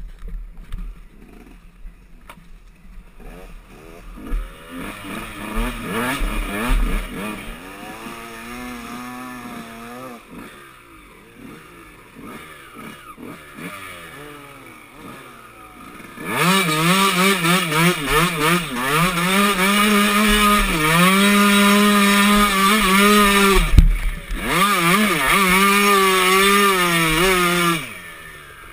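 Dirt bike engine riding a trail, heard close up from the bike itself: for the first half the revs rise and fall at part throttle, then a little past halfway it opens up and runs loud at high revs, with a sharp thump near the end, before backing off just at the close.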